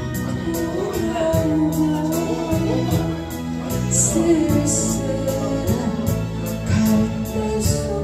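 A woman sings a slow Korean ballad, accompanied by her own acoustic guitar strummed in a steady rhythm.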